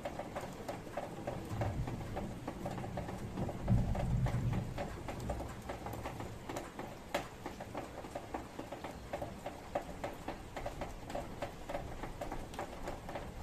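Steady rain pattering, a dense scatter of close, irregular drop ticks over a soft hiss. A low rumble swells and fades about two to five seconds in.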